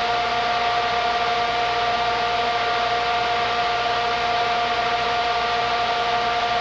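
AquaFog HRSM mobile fogger running: its fan and atomizer motor give a steady whine over an even rush of air as it propels fog.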